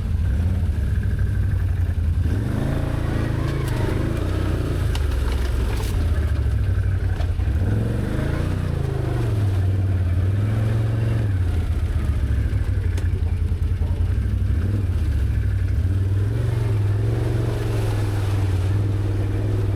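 Can-Am Outlander ATV's V-twin engine running at low trail speed, the throttle rising and falling every few seconds.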